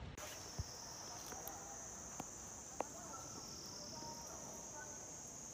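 Outdoor insect chorus: a steady, high-pitched drone of singing insects, with a few faint taps.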